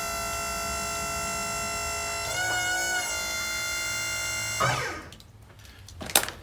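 Background music of sustained, droning chords with a short wavering passage in the middle, cutting off about three-quarters of the way through, followed by a few faint knocks.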